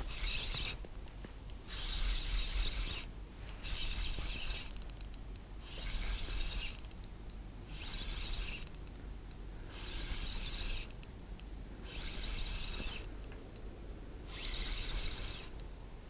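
A 4000-size spinning reel being cranked in short spells of about a second, with pauses of about a second between them, about eight times. The rotor and gears make a fine clicking whir. The crank-and-pause rhythm is that of a stepped jig retrieve.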